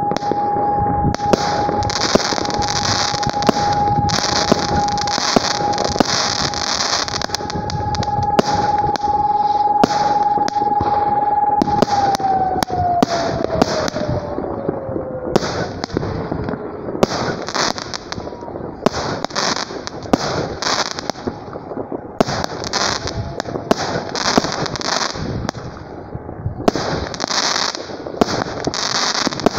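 A fireworks cake firing shot after shot, with sharp bangs of launches and bursts over dense hissing and crackle that come and go in spells of a second or two. A steady tone runs through the first part and glides down in pitch about halfway through.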